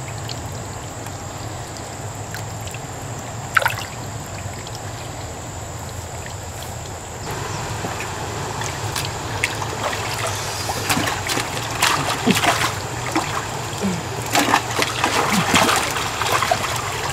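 Muddy water sloshing and trickling, with sharp splashes that grow busier in the second half as hands grab in the shallow water, over the steady low hum of a small engine-driven water pump drawing the pool down through its hose.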